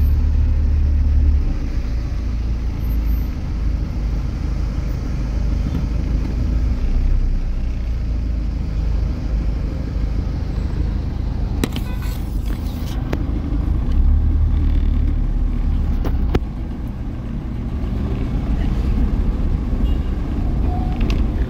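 Car cabin noise while creeping in slow traffic: a steady low rumble of engine and road. A few short clicks come about halfway through.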